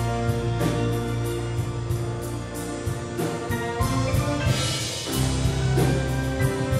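Grand piano and string orchestra playing live, with piano chords struck over sustained string notes and a low bass line.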